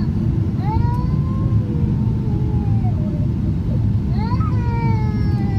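Steady low cabin rumble of a Boeing 777-300ER on approach, from its engines and the airflow, with flaps extended. Over it a young child cries twice in the cabin, each cry long, rising at first and then slowly falling.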